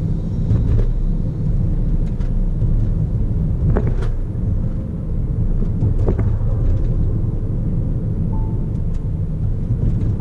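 Steady low rumble of road and engine noise from a car driving along a city street, with a few light clicks about four and six seconds in.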